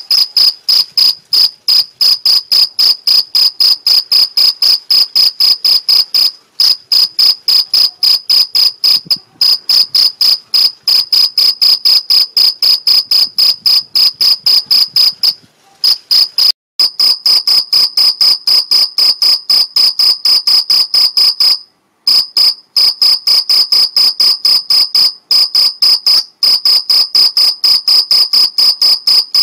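Male field cricket singing its calling song: a loud, shrill train of chirps, about three a second, with two short breaks partway through. This is the mating call a male makes by rubbing its forewings together.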